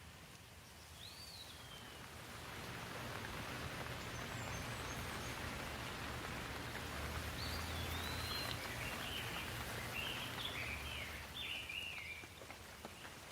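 Rain hiss that swells over several seconds and fades again. A bird chirps briefly near the start and repeatedly in the second half.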